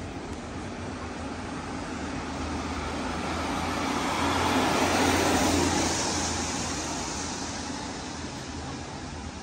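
A vehicle passing close by on the street, growing louder to a peak about halfway through and then fading away, with traffic running on underneath.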